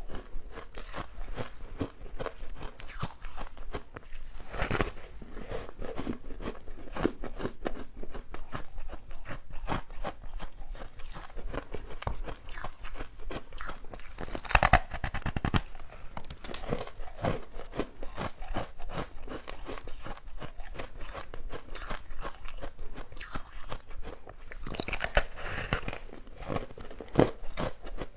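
Close-miked biting and crunching of a frozen ice treat, with repeated sharp crunches and chewing. The loudest bites come about five seconds in, in the middle, and near the end.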